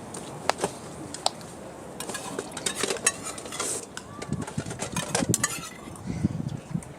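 Cutlery and dishes clinking and knocking: a couple of single sharp clicks, then a busier run of clatter through the middle.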